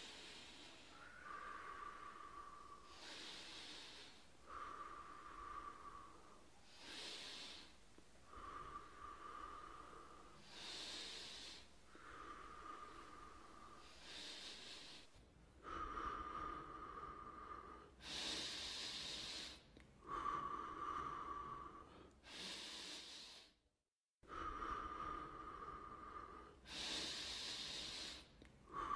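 Slow, laboured breathing of an elderly woman, about one breath every four seconds. Each cycle alternates a hissing rush of air with a thin, steady whistling wheeze, and the sound cuts out briefly near the end.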